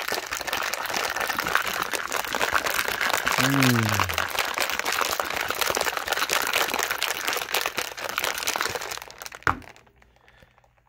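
Ice and a wire whisk ball rattling hard inside a plastic BlenderBottle shaker, shaken continuously for about nine seconds. It ends with one knock as the bottle is set down on a table.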